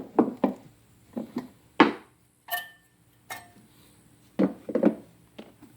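Metal brake parts being handled around the caliper, rotor and pad clips: about ten sharp clinks and knocks at irregular intervals, one about halfway through ringing briefly.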